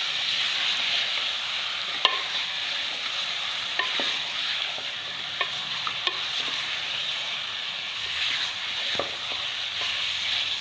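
Raw goat meat frying in a steel pot, stirred with a spatula: a steady sizzle with a few scattered knocks and scrapes of the spatula against the pot. This is the first searing (bhuna) of the raw meat with garlic.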